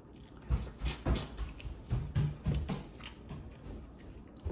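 Close-miked chewing of boiled corn on the cob, an irregular run of mouth sounds that is busiest in the first three seconds and thins out after.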